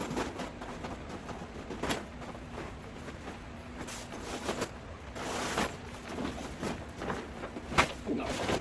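Handling noise as a grow tent's fabric cover is worked onto its metal frame: scattered knocks and clicks, with a longer rustle of fabric about five seconds in and a sharper knock near the end.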